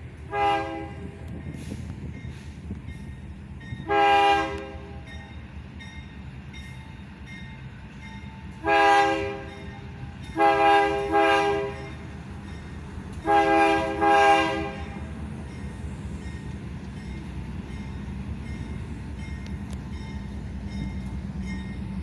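KCSM GE AC4400CW locomotive's air horn sounding a crossing sequence, each blast a chord of several tones: a short toot at the start, longer blasts about 4 and 9 seconds in, then two pairs of blasts from about 10 to 14 seconds. Under the horn the locomotive and train run with a steady low rumble.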